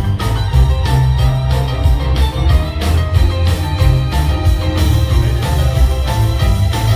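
Loud rock-and-roll band music with guitar over a heavy bass and a steady drum beat, with no singing.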